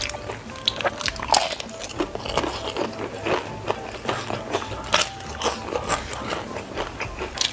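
Close-miked biting and chewing of crispy fried udang rambutan (shrimp wrapped in crisp fried wonton skin): a steady run of sharp, irregular crunches.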